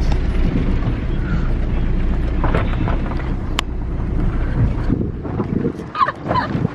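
Wind buffeting the microphone at an open car window, a heavy low rumble that drops away about five seconds in.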